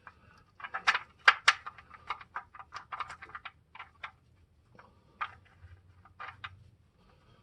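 Irregular light metallic clicks and taps from handling and refitting the oil drain plug, several a second at first and thinning out after about four seconds.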